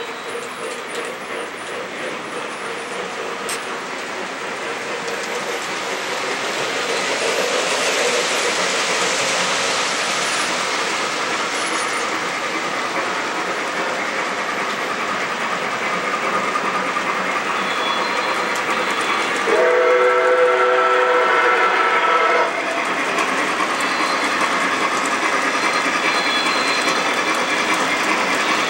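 Lionel Legacy Nickel Plate Road Berkshire O-scale model steam locomotive and freight train running on three-rail track, a steady rolling rumble of wheels that grows louder as it comes closer. A little past two-thirds of the way in, its onboard sound system gives one multi-tone steam whistle blast about three seconds long, the loudest sound here.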